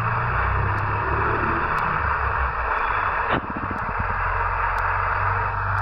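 Steady hiss with a low rumble from a pot of rice and water boiling on a gas stove as a wooden spoon stirs it, with one sharp knock about three seconds in.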